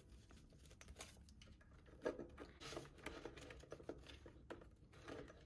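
Faint rustling and light taps of paper banknotes being handled and slipped into a cash envelope.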